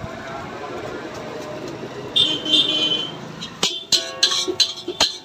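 Road traffic noise with a short horn toot, then a quick run of sharp metallic clangs that ring on, like a metal spatula striking a wok.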